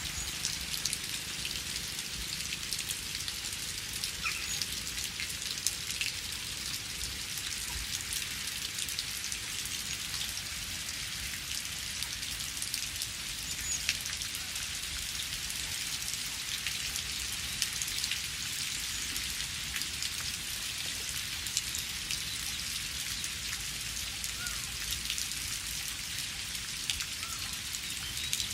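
Steady rain: a dense, even hiss with many distinct drop clicks and a low rumble beneath.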